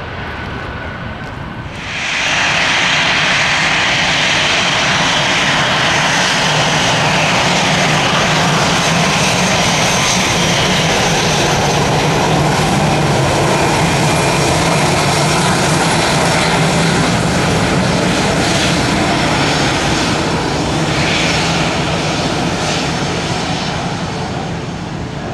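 Jet airliner's engines and rushing air as it passes close on its landing approach. The noise swells sharply about two seconds in, holds steady, and eases off near the end.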